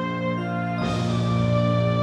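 Background music: slow sustained chords, changing about half a second in, with a fuller, brighter chord swelling in just before the one-second mark.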